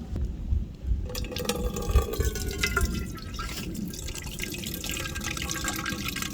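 Liquid poured into a container in a steady stream, starting about a second in.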